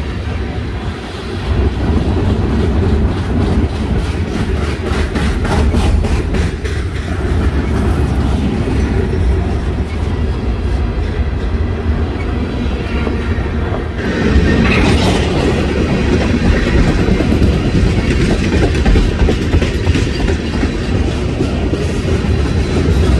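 Freight train rolling past, its wheels clacking rhythmically over rail joints under a steady heavy rumble.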